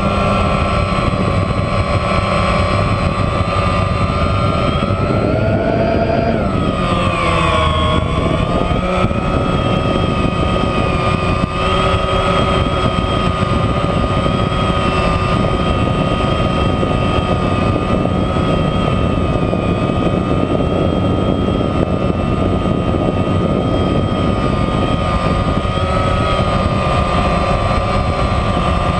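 DJI Phantom quadcopter's electric motors and propellers whining steadily, heard close up from the camera mounted on the drone. About six seconds in the pitch rises and then dips as the motors change speed, then it settles into a steady drone.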